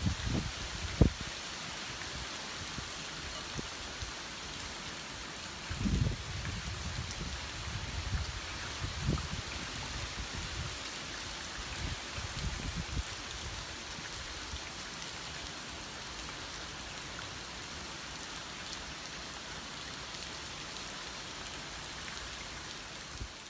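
Heavy typhoon rain falling steadily, a dense even hiss. A few short low buffets of wind hit the microphone about a second in, around six and nine seconds, and again at twelve to thirteen seconds.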